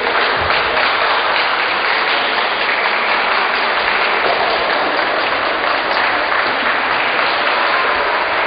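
Crowd applauding: a steady, dense clatter of many hands clapping.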